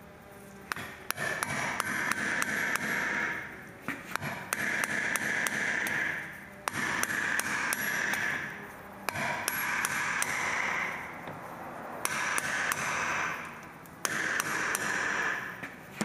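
Impact driver with a T40 Torx bit hammering at the rotor retaining screw in about six bursts of rapid clicking, each a couple of seconds long, with short pauses between. The screw will not break loose: it is in there tight, held with blue Loctite.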